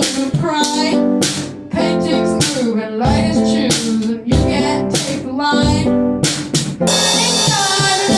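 A rock band's song: singing over guitar and a drum kit, with steady drum hits throughout.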